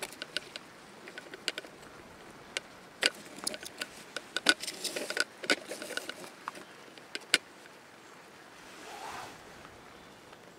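Sharp irregular clinks and clicks of a metal stovetop moka pot being handled on a crackling campfire, densest in the middle. A brief soft rushing swell near the end.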